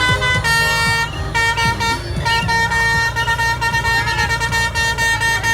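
Basuri 'telolet' musical horn on an SJM Trans bus sounding a run of long blasts, the chord of several pitched trumpets changing roughly every second.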